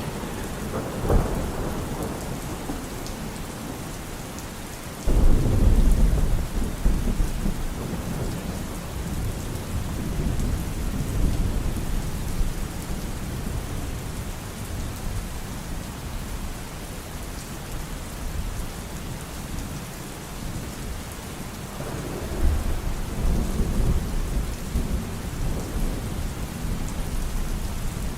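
Steady rain falling, with thunder rumbling over it. A sharp clap comes about a second in. A sudden loud roll of thunder breaks about five seconds in and rumbles on for several seconds, and another rumble swells near the end.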